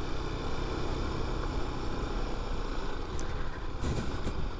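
Motorcycle engine running steadily with a low rumble, with a few short knocks near the end.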